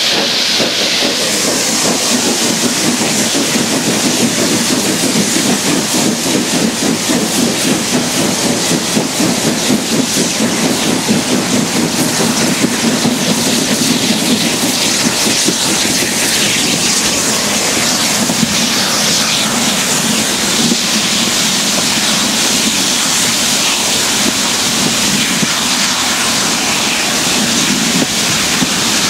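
Four saddle-tank steam locomotives heading a train and working hard, their exhaust beats running together into a rapid, uneven chuffing, strongest in the first half, with steam hiss and the train running on the rails.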